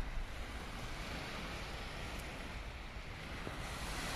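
Small waves washing steadily onto a sandy Baltic Sea shore, with wind rumbling on the microphone.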